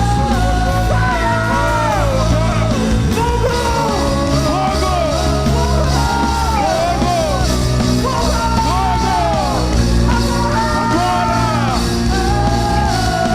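Loud live worship music from a band with electric guitar and bass, with voices singing and calling out over it.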